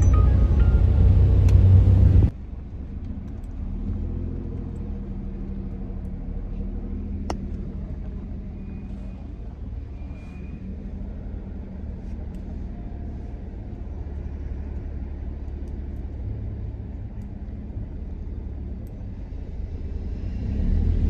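Steady low rumble of a car on the road, with a faint hum above it. It starts about two seconds in, after a louder low passage cuts off abruptly.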